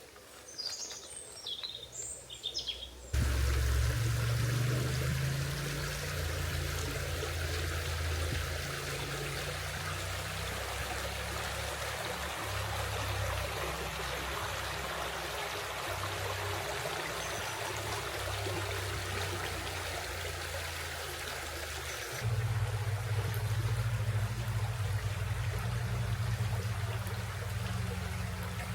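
A few bird chirps in near quiet, then, after an abrupt cut about three seconds in, a river flowing steadily with a low rumble beneath, which continues to the end.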